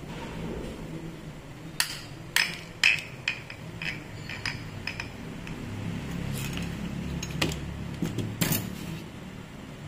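Irregular sharp metallic clicks and clinks of a steel two-jaw puller being handled and worked against an angle grinder's aluminium bearing plate. The clinks come about a dozen times, loudest two to three seconds in, over a steady low hum.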